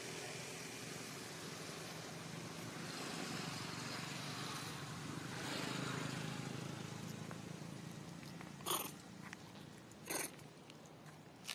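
A distant engine drones as a low steady hum that swells about halfway through and then fades. Two sharp clicks a second and a half apart come near the end.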